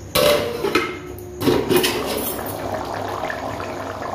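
An aluminium lid clanks and scrapes against an aluminium kadai several times in the first second and a half as it is taken off. Then the chana masala gravy inside bubbles steadily as it simmers.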